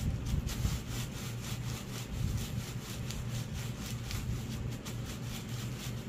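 Black plastic wrapping around a hongdukkae roll of dyed cloth crinkling and rubbing as bare feet tread and roll it on a bamboo mat, in a quick, even rhythm of rustling strokes. Treading the roll like this smooths and flattens the cloth.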